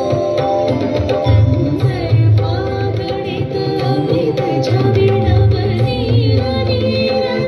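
Indian instrumental music with tabla drumming and a wavering melody line over a steady, deep bass: the soundtrack of a musical fountain show.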